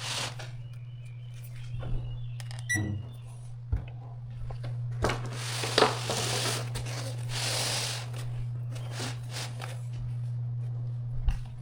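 Parts of an E4404B spectrum analyzer being handled and fitted back together by hand: scattered clicks and knocks, with a longer rustling, sliding stretch about five to eight seconds in, over a steady low hum.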